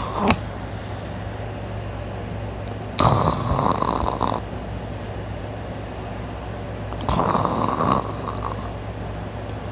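A person snoring in deep sleep, lying on their side with the mouth open: two loud snores about four seconds apart, each lasting over a second, over a steady low hum.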